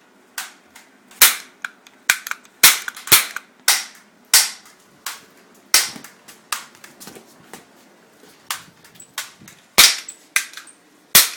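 Toy cap guns firing a rapid, irregular string of sharp cracks, about twenty shots, often less than a second apart.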